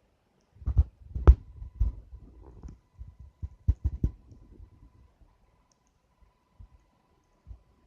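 Wood campfire crackling, with irregular sharp pops and dull thumps that come thick for the first few seconds and then thin out to a few scattered pops.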